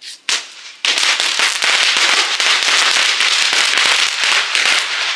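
A 'chat chat' crackling firecracker going off on the ground: a couple of sharp pops, then about a second in a dense, rapid crackle of many small pops. It keeps going and dies away at the very end.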